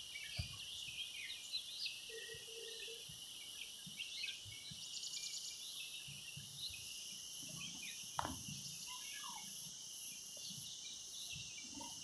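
Forest ambience: a steady high-pitched insect drone, with scattered short bird chirps and a brief fast trill about five seconds in.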